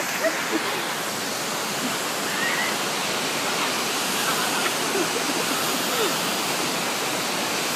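Waterfall running, a steady, dense rush of falling water close by.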